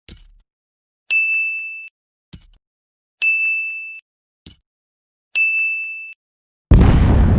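A metallic sound effect repeated three times: a short sharp tick, then a bright, high ringing ding that fades over under a second. Near the end a sudden loud blast with a deep rumble cuts in, like an explosion effect.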